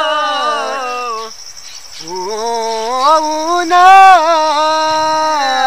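A man singing without accompaniment, long held notes that slide up and down, breaking off for a breath about a second in before going on. A steady high-pitched insect drone sounds underneath.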